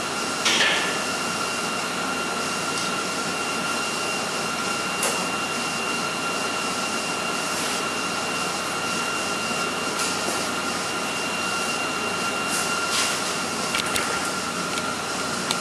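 Steady whirring hiss of a running machine or fan with a faint high whine, unchanging throughout. A sharp metallic clink about half a second in, and a few lighter clicks later.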